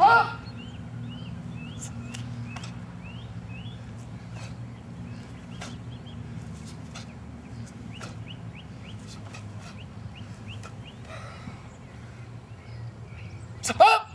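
Two short, loud karate kiai shouts, one right at the start and one just before the end. Between them, small birds chirp over and over in quick rising notes, over a steady low hum with scattered faint clicks.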